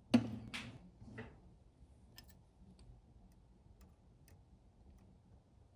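Small sharp clicks and ticks of metal parts being handled during a needle change on an industrial sewing machine. Three louder clicks come in the first second and a half, then fainter scattered ticks.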